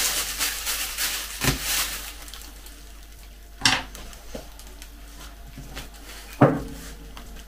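Plastic bag rustling as a fork pokes through it into marinated beef in a glass bowl, then a sharp clack as the fork is put down on the table. Near the end the glass bowl knocks once with a short ring as it is picked up.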